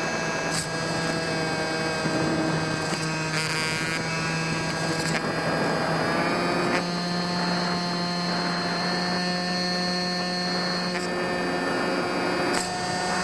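Brushless electric motor and propeller of a foam RC model plane running steadily in cruise: an even hum with a high whine above it, the pitch stepping up slightly about seven seconds in as the throttle changes.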